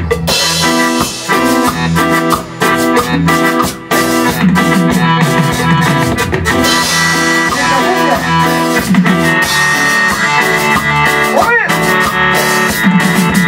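Live cumbia band music: a Korg N364 keyboard playing the melody over a steady beat of drum kit and percussion with bass. About eleven and a half seconds in, one note bends up and back down.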